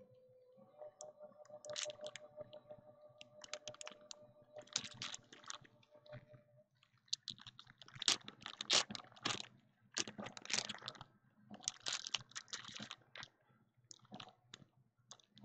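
Panini Prizm trading card packs being ripped open and the cards handled: foil wrappers crinkling and cards snapping and sliding against each other. The crackling comes in quick, dense clusters through the second half.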